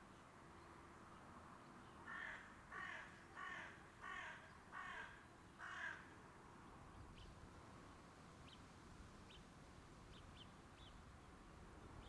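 A crow cawing six times in a quick even series, about two calls a second, followed by a few faint short chirps of small birds.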